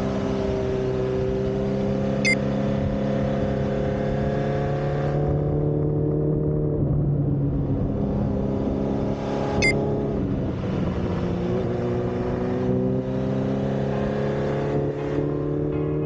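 Honda CB1300SF inline-four running through a BEAMS exhaust, a steady exhaust note whose pitch dips and picks up again about seven and ten seconds in, then rises slowly. Two short high clicks sound over it, about two and ten seconds in.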